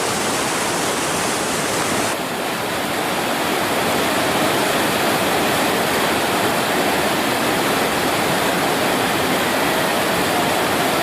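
Rushing whitewater of a river, a steady loud rush with no let-up; about two seconds in its sound shifts slightly and loses some of its high hiss.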